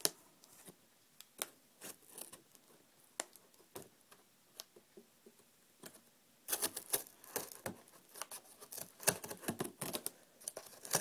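Knife blade cutting and scraping along packing tape on a cardboard box: scattered light clicks and scrapes at first, then from about six and a half seconds in a dense run of quick scratchy cuts.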